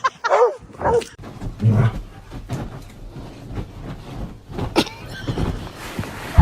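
A dog gives a couple of short barks, then low rumbling noise with scattered knocks.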